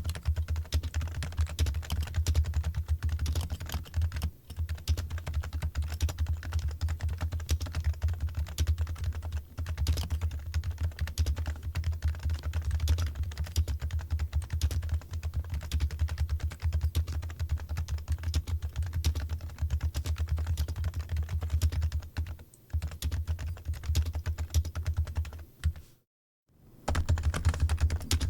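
Fast, continuous typing on a computer keyboard: a dense clatter of key clicks over a heavy low thud. It breaks off completely for about a second near the end, then resumes.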